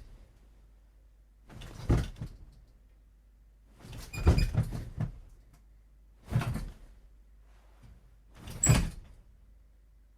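Sound effect of a body jolting under electric shocks: four separate bursts of movement about two seconds apart, each swelling and dying away within about a second.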